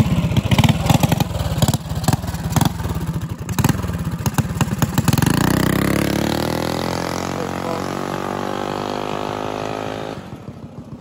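Small single-cylinder four-stroke minibike engine running loud and uneven close by, with many sharp pops. About five seconds in it revs up as the bike pulls away, then fades into the distance with its pitch falling.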